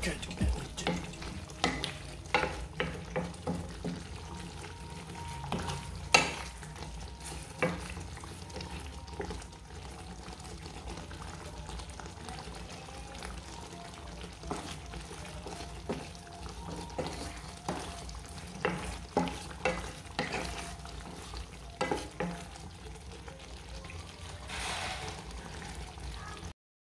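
Wooden spatula stirring a thick goat curry in a metal pot, with irregular knocks and scrapes against the pot over the curry sizzling and simmering. A steady low hum runs underneath.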